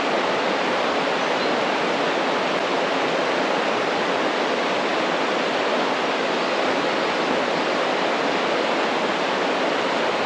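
Steady rushing of a waterfall, an even wash of water noise that holds without change.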